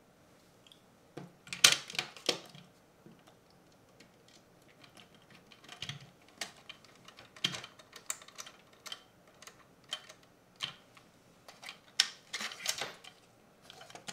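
Irregular clicks, taps and short scrapes of hard plastic parts of a PO-80 Record Factory kit turntable being handled, fitted together and screwed in place with a small screwdriver. The clicks come in clusters, the loudest about two seconds in.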